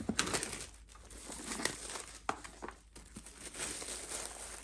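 Plastic wrapping crinkling and rustling in irregular crackles as a cardboard box is pulled out of it by hand.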